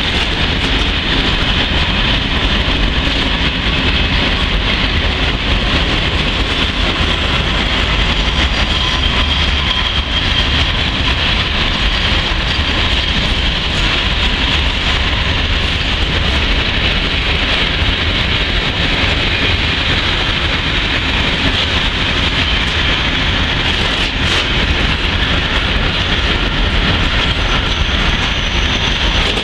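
Freight train of open-top wagons rolling past on the track beside the platform: a steady rumble and rattle of wheels on rail.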